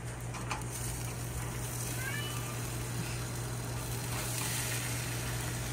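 A steady low hum under a faint hiss, with a few faint, short falling chirps about two seconds in.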